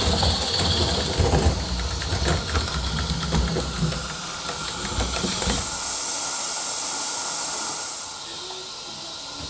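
Live steam model locomotive hissing steam as it runs on tinplate O gauge track, its wheels clicking and rumbling over the rail joints as it passes close by. The clicking and rumble fade away about halfway through, leaving a steady quieter hiss.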